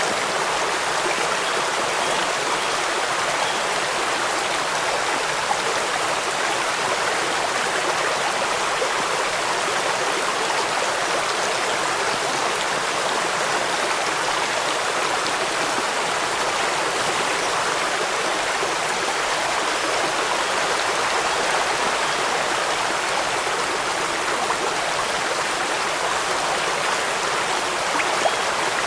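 Steady rushing water, an even unbroken hiss of a stream or falls mixed with rain, with no separate drops, splashes or changes.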